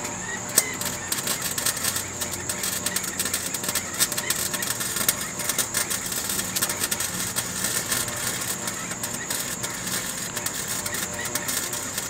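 Electric arc welder crackling and sputtering continuously as a new muffler is welded onto a car's exhaust pipe, starting as the arc strikes right at the start.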